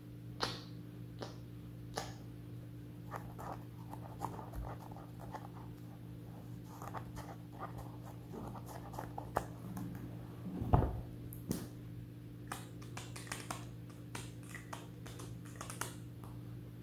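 Soft handling sounds of a paper note card and a Sharpie marker: scattered light taps, scratches and clicks, growing busier in the second half, with one louder bump about eleven seconds in. A steady low hum lies underneath.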